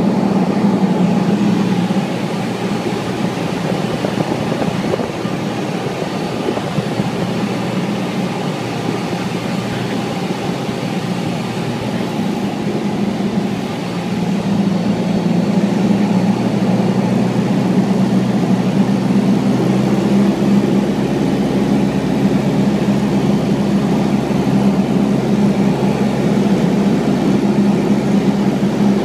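Steady drone of a light single-engine airplane's piston engine and propeller, heard from inside the cabin. It eases a little about two seconds in and grows louder again from about fourteen seconds.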